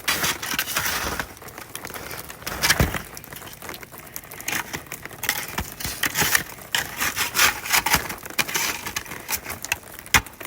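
Icy snow crunching and cracking in irregular snaps and crackles of varying loudness.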